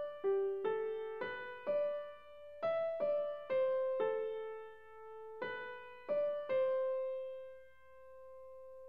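Background music: a slow piano melody of single struck notes, each fading after it sounds, with the last one left to ring out near the end.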